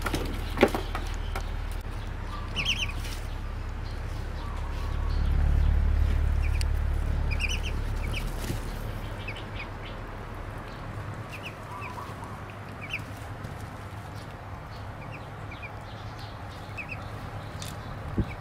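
Duckling peeping: short high chirps, singly and in pairs, every second or two, over a low rumble that swells a few seconds in and then fades.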